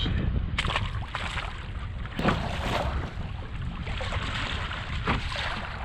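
Wind buffeting the microphone as a steady low rumble, with water splashing and slapping against a kayak on choppy sea several times; the sharpest splash comes about two seconds in.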